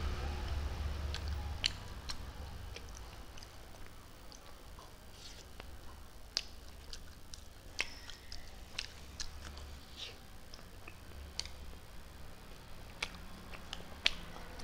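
Close-up mouth sounds of someone eating an ice cream sandwich: quiet chewing with irregular lip smacks and wet clicks, over a low steady hum.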